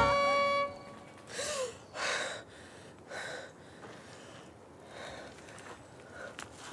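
Held music tones cut off under a second in. They are followed by three sharp gasping breaths from a woman in the next two and a half seconds, then fainter breathing.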